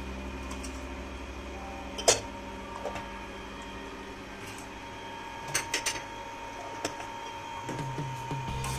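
A steady low hum with a few sharp clicks and taps from handling the wok, utensils and seasoning beside the stove: one loud click about two seconds in, and a quick cluster of clicks a little past halfway.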